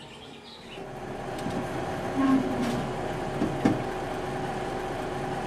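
Convenience-store room tone: a steady machine hum with a low, even tone, fading in about half a second in, with a few light knocks.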